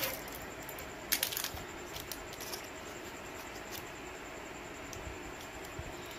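Craft supplies being handled on a tabletop: a quick cluster of light clicks and taps about a second in, then a few scattered soft ticks, over a steady low hiss.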